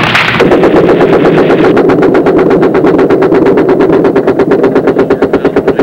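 Mounted machine gun firing in long, unbroken bursts at about ten shots a second, starting about half a second in, with a steady drone underneath.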